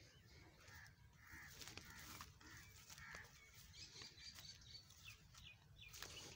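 Faint distant crows cawing a few times, with a few higher bird chirps and scattered soft clicks.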